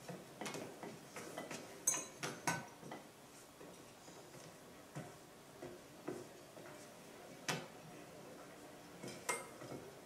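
Scattered light clinks of cutlery and dishes at a restaurant table, faint and heard through a TV speaker.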